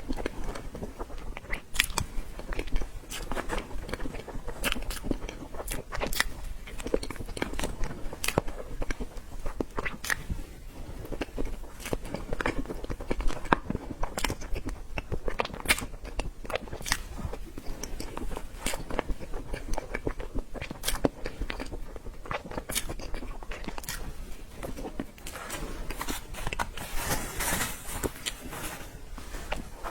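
Close-up eating sounds of a person chewing and biting dessert, with many small sharp wet clicks and light crunches. A brief rustling hiss comes near the end.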